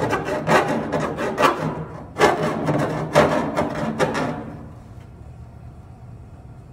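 Hand file rasping back and forth on the cut edge of a freshly cut steering-column hole in a sheet-steel firewall, deburring and smoothing it, at about two strokes a second. It breaks briefly about two seconds in and stops a little after four seconds.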